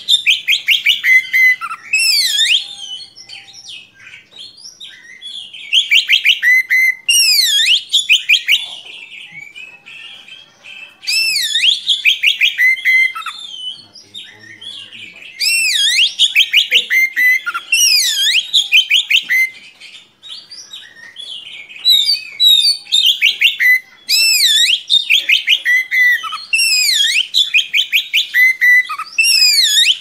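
Oriental magpie-robin (kacer) singing loudly in repeated bursts of a few seconds each: fast runs of whistled notes that sweep up and down, with short pauses between the bursts.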